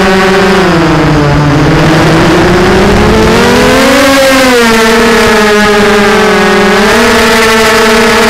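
Brushless motors and propellers of a Vortex 250 Pro FPV racing quadcopter (Lumenier 2206 2350Kv motors), heard through its own onboard camera: a loud whine whose pitch dips about a second in, climbs to a peak around four seconds in, then settles, following the throttle.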